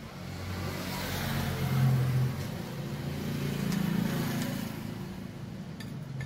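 A motor vehicle going past: engine and road noise that swells over the first couple of seconds and eases off later, with a faint click near the end.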